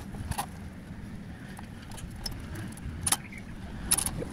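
A few sharp metallic clicks and light rattles from a cordless drill being handled against a sheet-metal chimney tray, with the sharpest clicks about three and four seconds in.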